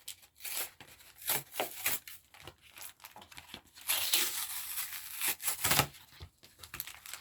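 Pokémon card blister pack of cardboard and plastic being torn open by hand: a run of short tearing and crinkling rustles, with a longer tear about four seconds in.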